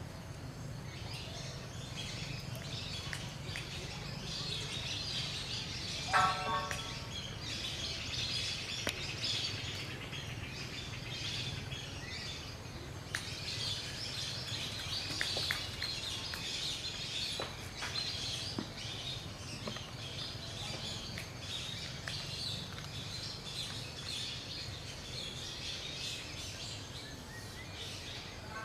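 Many birds chirping continuously in the background over a low steady hum, with one short pitched call about six seconds in.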